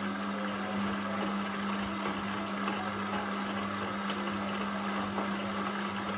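Indesit washing machine's drum motor running with a steady hum as the drum turns and tumbles wet laundry.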